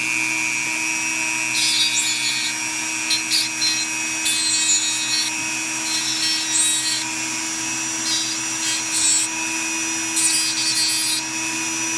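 Small electric rotary tool running with a steady whine, grinding in repeated short scraping bursts from about a second and a half in as it is pressed against a dogface puffer's overgrown dental plates to trim them down.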